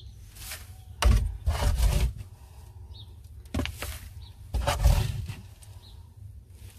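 Plastic slotted scoop raking and sifting through wood-shavings bedding, a rustling scrape in three bursts: a long one about a second in, a short one past the middle and another soon after. The shavings are being sifted to pick out chicken droppings.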